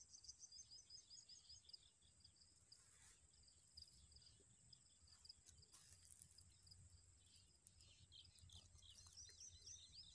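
Faint birds chirping in quick runs of short high calls, thickening toward the end, over a low, steady rumble.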